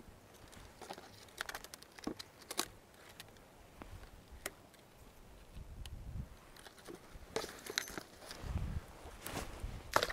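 Scattered light clicks and knocks, with a couple of low rumbles, from a paddle and gear being handled in an inflatable boat on still water.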